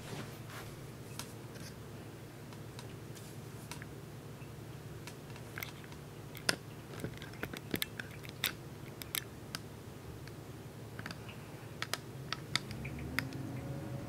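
Crane ultrasonic cool mist humidifier running with a quiet, steady low hum, with scattered sharp clicks through the middle and later part.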